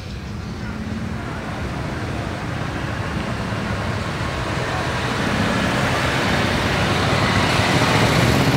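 A column of motorcycles on the road, their mixed engine noise growing steadily louder as they approach.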